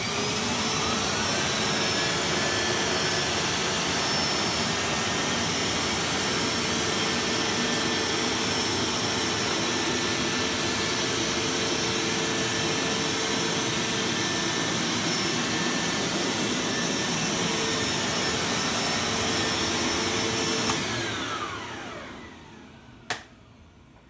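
Hoover Max Extract upright carpet washer's motor starting up with a rising whine and running steadily as it is pushed over carpet. About 21 seconds in it is switched off and winds down with a falling whine. A single click follows near the end.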